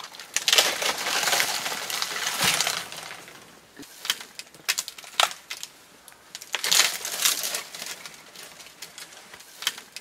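Branches snapping and leaves rustling as they are broken off trees: a long crackling stretch in the first few seconds, then a string of sharp separate cracks.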